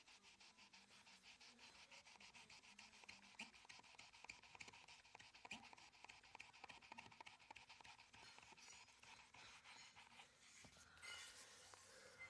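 Faint, quick back-and-forth rubbing of a damp Farmasi magic sponge, a melamine foam eraser, against a wardrobe's laminate panel, scrubbing at scuff marks. The strokes come in an even rhythm.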